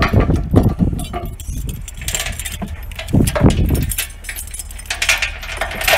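Steel trailer safety chains clinking and rattling as they are handled and hung over the tongue jack. There is a short rustling hiss about two seconds in and again about five seconds in.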